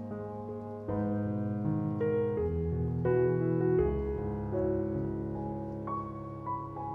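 Background piano music: a slow, gentle piece with chords and single notes changing about every half second.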